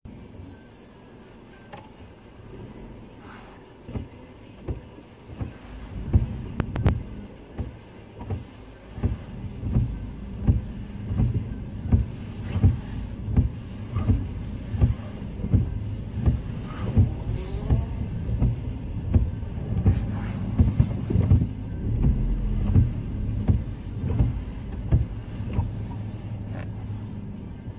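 A car driving, heard from inside the cabin: a steady low hum with a regular thump a little more than once a second.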